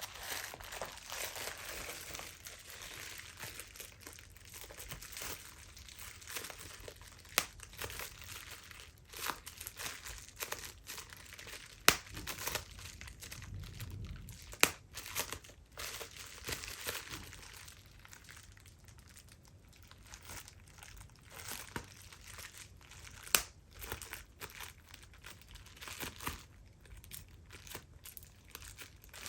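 Plastic bubble wrap crinkling as it is squeezed and handled, with sharp pops of bursting bubbles scattered through, a few much louder than the rest.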